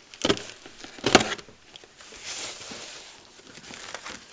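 Scissors cutting through the packing tape and cardboard of a parcel box: two sharp snips, about a quarter second and a second in, the second the louder, then a softer scraping rustle of cardboard and tape.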